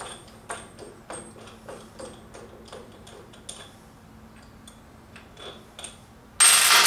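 A nut being spun off its threaded stud by hand, giving faint, irregular metal ticks and clicks. Near the end comes one short, loud scraping noise.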